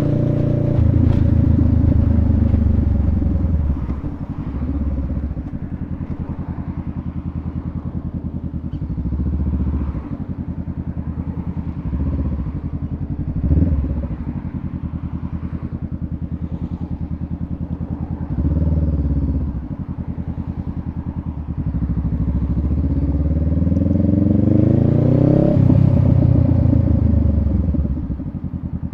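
Honda Rebel 500's parallel-twin engine under way, its pitch rising as it accelerates and dropping back at each gear change, with stretches of steady cruising between; the longest climb comes near the end.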